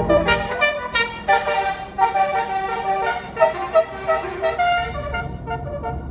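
Tour bus's 'basuri' telolet musical air horn playing a quick tune of short notes that change pitch. The tune thins out near the end as a low engine rumble comes up.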